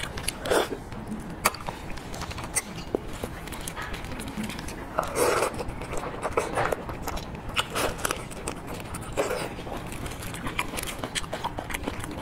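Close-up eating sounds of raw marinated shrimp: wet smacking, biting and chewing, with gloved fingers pulling the shrimp apart. Short scattered clicks run throughout, with a few longer, louder wet sucking sounds, the loudest about five seconds in.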